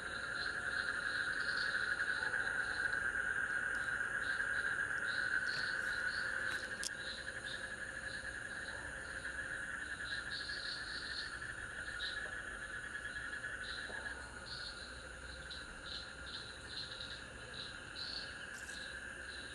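Crickets and other night insects calling together: a steady high trill, louder in the first third and easing later, with a quick repeated chirping above it.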